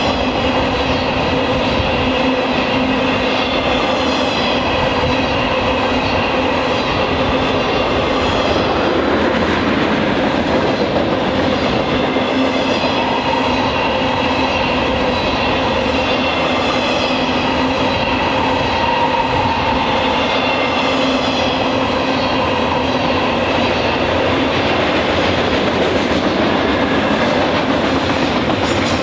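Freight cars rolling past close by: the steady noise of steel wheels running on the rails, with steady high and low pitched tones ringing over it.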